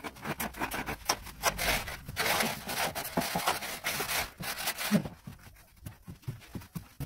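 Shovel and straightedge scraping across damp sand-cement screed mix in irregular strokes, quieter for a spell near the end.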